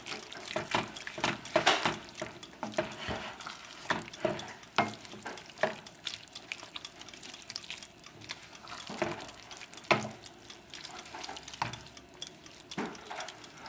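A wooden spoon stirs thick risotto with chicken pieces in a stainless steel pan, giving irregular scrapes and knocks against the pan.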